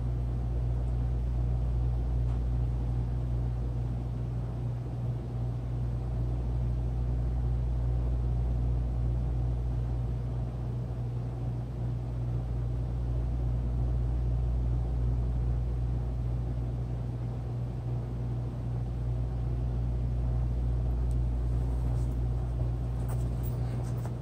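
Steady low hum, with a few faint clicks near the end.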